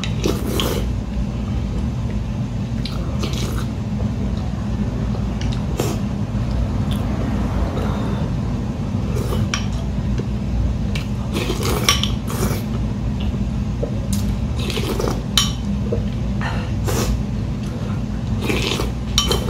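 A ceramic soup spoon clinks against a small porcelain bowl, mixed with the slurping of ramen broth and noodles. These sounds come every second or two over a steady low hum.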